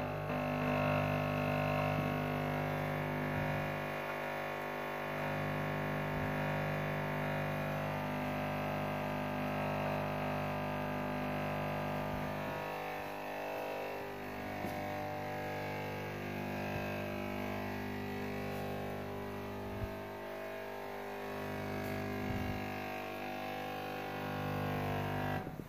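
Music of long held notes over a steady low drone, the chord shifting every several seconds, cutting off suddenly at the end.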